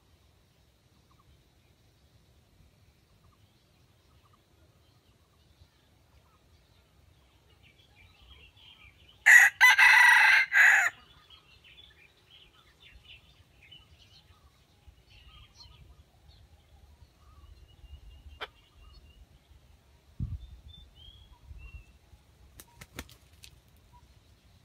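A red junglefowl rooster crows once, a short, loud crow of about a second and a half, roughly nine seconds in. Faint high chirps and a few light clicks follow.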